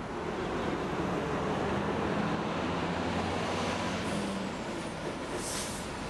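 Steady rumble of heavy engines and traffic, with a low engine hum strongest through the middle and a short hiss about five and a half seconds in.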